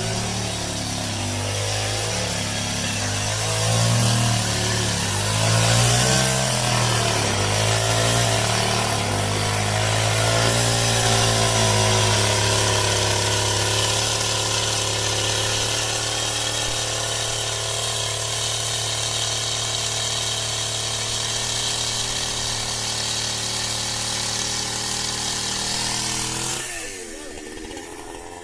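Two-stroke chainsaw running at high throttle, its pitch wavering up and down for the first dozen seconds, then holding steady. Near the end it drops back to a quieter, lower running.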